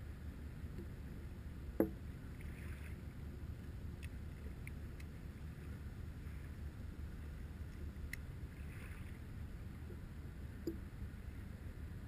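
Gentle river water lapping around a camera held at the water's surface, over a low steady rumble, with one sharp click about two seconds in and a few faint ticks after.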